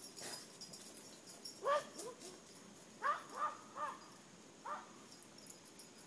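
Black pug barking, about six faint short high barks in loose bunches, heard from far off across a lawn.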